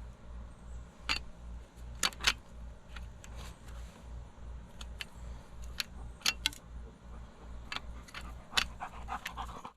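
Solid-brass garden-hose quick-connect fittings being handled and unhooked: a scattered series of sharp metallic clicks and clinks. A low, evenly pulsing hum runs underneath.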